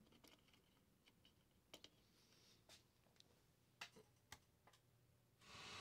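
Mostly near silence with a few small scattered clicks from hands handling meter wires and the receiver. Just before the end, a steady hiss of FM radio static starts suddenly from the receiver.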